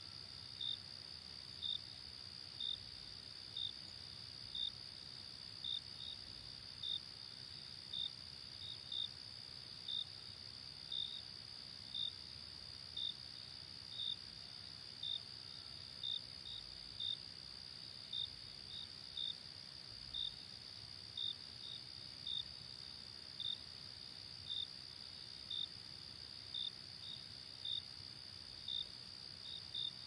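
Insects chirping: a steady high trill with short, sharp chirps about once a second on top, like crickets in a field.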